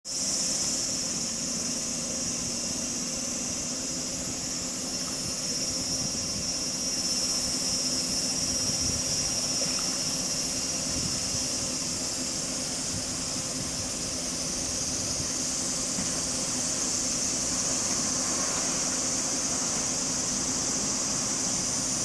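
Water spilling steadily over a low step in a concrete irrigation canal, where a lowered steel weir plate has formed a small waterfall. It makes an even rushing noise, with a steady high-pitched hiss on top.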